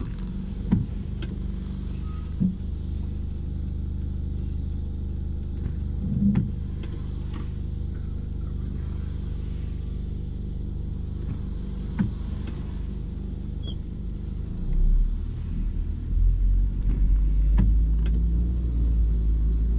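Car engine and tyres rumbling steadily on a wet road, heard from inside the cabin. A few sharp clicks come through, and the low rumble grows louder over the last few seconds.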